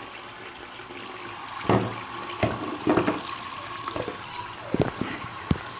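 Water running steadily, likely from a tap, with about half a dozen sharp knocks and clatters over it.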